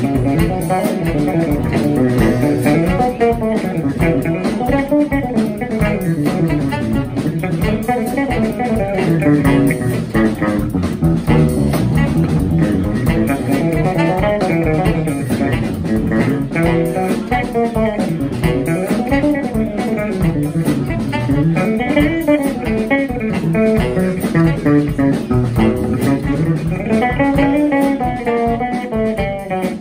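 Live jazz trio music: an electric bass guitar plays a moving melodic line, with drums.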